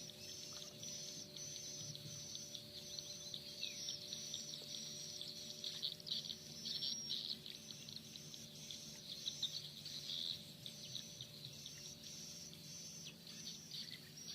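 A chorus of calling insects chirping in an even rhythm, about two high-pitched pulses a second, over a steady low hum.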